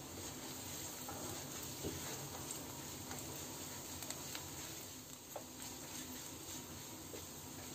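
Sliced onions, garlic and curry leaves sizzling faintly in oil in a nonstick wok, sautéing on low to medium heat, while a spatula stirs them with a few light scrapes and taps against the pan.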